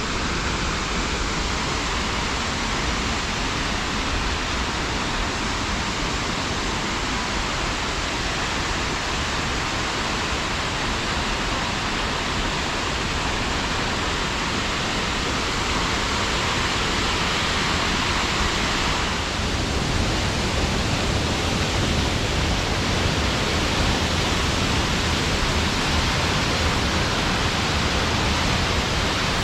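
Steady roar of a waterfall on the Little Mashel River heard close up, an even rushing of falling water with no letup. The sound shifts slightly and grows a little louder about two-thirds of the way through.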